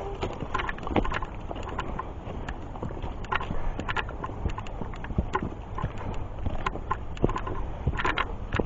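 Hikers' footsteps crunching steadily on a dirt trail while climbing a hill, about a step and a half a second.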